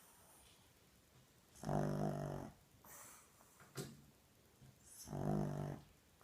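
Pug snoring loudly in its sleep: two long pitched snores about three and a half seconds apart, with faint breathy sounds between them.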